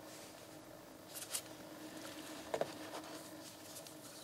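Faint handling noises at a workbench: soft rustles a little over a second in and a light knock about two and a half seconds in, over a low steady hum.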